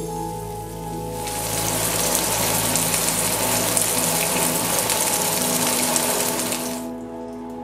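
Wagyu ribeye searing in a hot non-stick pan, the fat sizzling; the sizzle swells loud about a second in and cuts off sharply near the end. Soft background music runs underneath.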